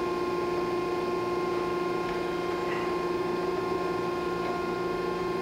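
1968 Bryant Universal internal grinder running under hydraulic power: a steady hum from its hydraulic pump and drives, with several constant tones that don't change.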